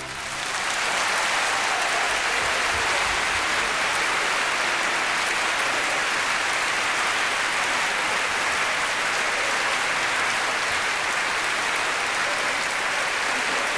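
Large concert audience applauding. The clapping swells up within the first second as the orchestra's final chord ends, then holds steady and dense.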